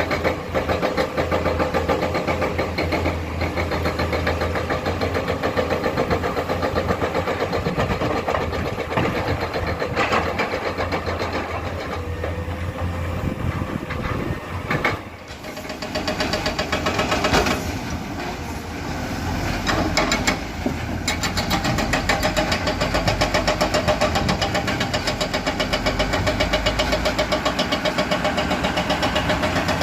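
Heavy diesel engines of hydraulic excavators working at a rock-loading site, running with a fast even throb. The sound dips briefly about halfway through and then comes back up.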